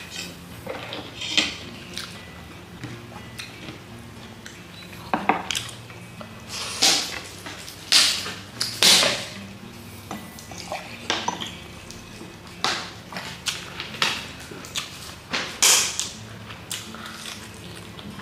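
Tableware being handled during a meal: irregular clinks and scrapes of cutlery and food on plates, loudest about eight and nine seconds in and again near sixteen seconds.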